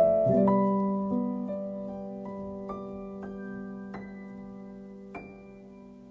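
Solo piano: a low chord is held while single higher notes are struck one at a time above it, a couple a second at first and then more sparsely, the sound fading steadily away.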